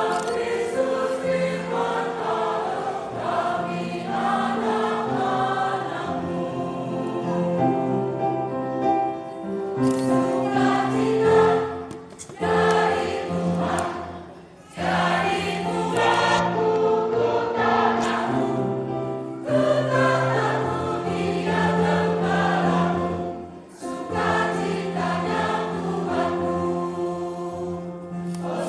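Mixed church choir singing a Christmas hymn in several-part harmony, phrases of sustained notes separated by short breaks between lines.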